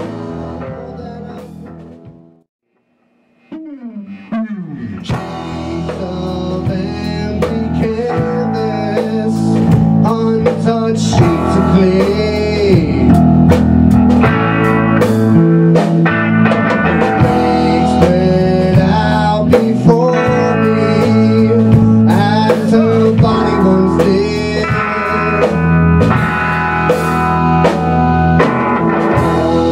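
Rock band playing blues-rock on electric guitar, electric bass and a Tama drum kit. The music dies away about two seconds in, goes silent for about a second, then comes back with a falling glide and builds louder.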